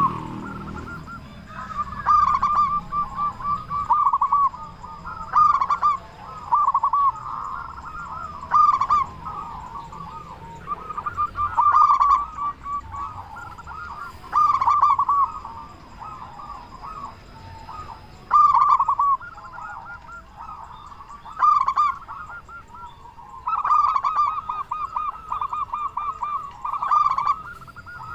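Zebra dove (perkutut) cooing: a loud repeated song of rapid trilled coos, one phrase every two to three seconds.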